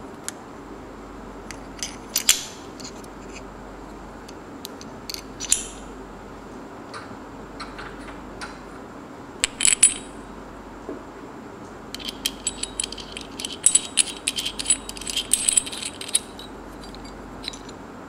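Small metal parts of a belt pulley, its bolt, dust cap and bearing, clicking and clinking as they are handled. Scattered sharp clicks come over the first ten seconds, then a dense run of quick metallic clicking and rattling lasts about four seconds.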